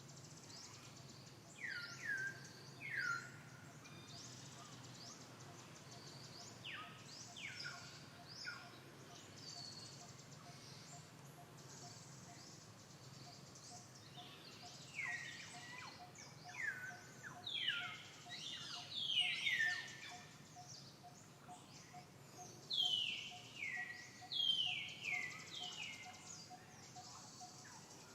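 A monkey screaming: short high-pitched calls that slide sharply downward, coming singly or in quick clusters of two or three, more often in the second half. These are the frightened screams of a female monkey threatened by another monkey.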